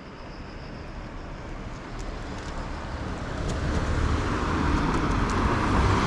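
A car approaching along the road, its engine and tyre noise growing steadily louder as it nears.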